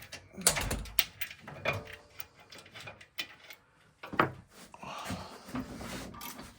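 Irregular knocks, clicks and scraping of hand tools and parts being handled while working under a car's front suspension, the loudest knock a little past halfway.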